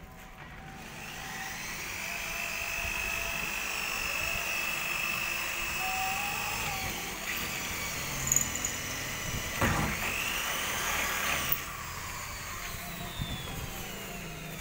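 Corded electric hand drill boring a bolt hole through a fibreglass boat deck for a railing mount: a steady whine that stops about seven seconds in, then a shorter second run that climbs in pitch before cutting off, with a few sharp knocks in between.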